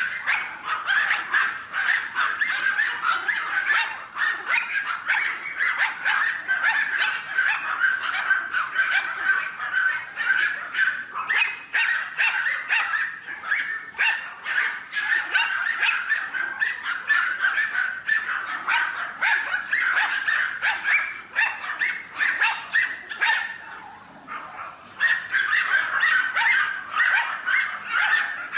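Animal calls: a continuous, rapid chatter of short yipping calls, with a brief lull near the end.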